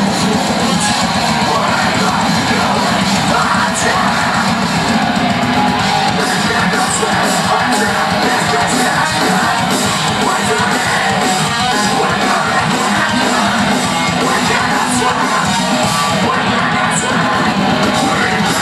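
Metalcore band playing live at full volume, with distorted electric guitars and shouted, harsh vocals, heard from within the crowd.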